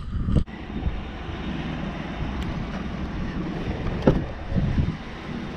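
A pickup truck running, heard from outside as a steady rushing noise, with one sharp click about four seconds in. The click is the loudest sound.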